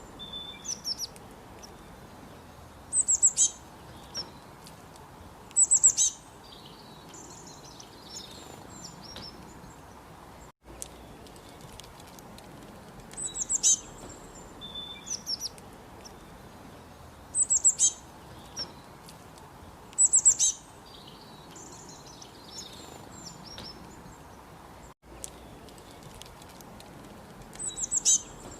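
Small birds chirping: short bursts of rapid, very high notes every few seconds, with softer twittering between them, over a faint steady hiss. The same sequence of calls repeats about every 14 seconds, broken by brief dropouts.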